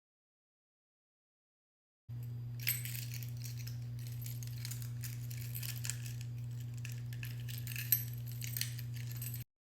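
Small metal objects jingling and clinking irregularly over a steady electrical hum, starting about two seconds in and cutting off suddenly near the end.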